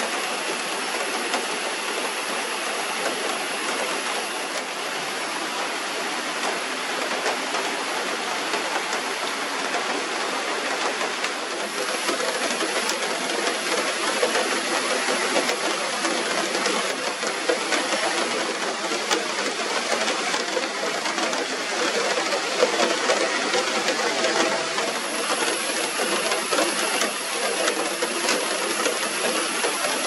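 Steady monsoon rain falling through a forest canopy and pattering on broad wet leaves, a dense hiss thick with small drop taps.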